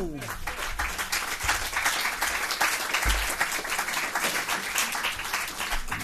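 Audience applauding: many hands clapping at a fairly steady level.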